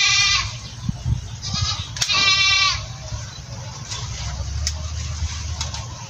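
Goat bleating: a wavering bleat right at the start and a longer, louder one about two seconds in, with a faint short one between them.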